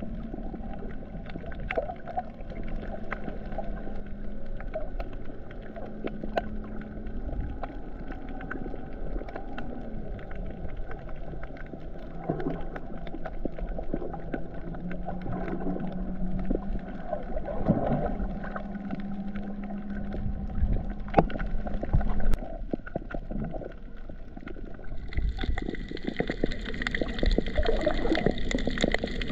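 Underwater sound picked up by a snorkeler's camera: muffled water noise with a steady low drone that wavers slightly in pitch, and scattered sharp clicks. A few seconds before the end the sound turns brighter and hissier.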